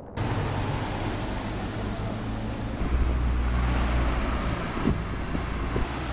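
Town street traffic: car engines and tyres going past, with a heavier low rumble in the middle as a vehicle passes close, and some wind on the microphone.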